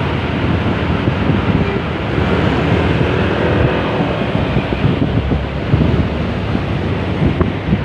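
Bus and road-traffic noise, a steady engine and tyre rumble, with wind buffeting the phone microphone.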